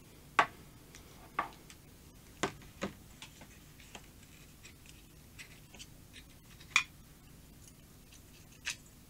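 Scattered sharp clicks and taps of a screwdriver and small plastic and metal parts as a screw is undone from a desolder pump's plastic housing and the parts are handled on the bench. The sharpest clicks come about half a second in and again about three quarters of the way through.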